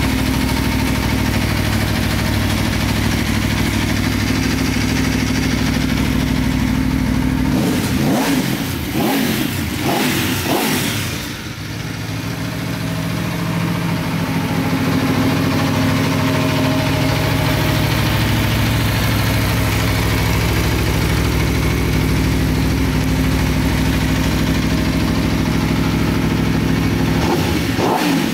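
Aprilia RSV4 1000 R's V4 engine idling steadily. About eight seconds in it is revved several times in quick succession, then settles back to idle, with one more short rev near the end.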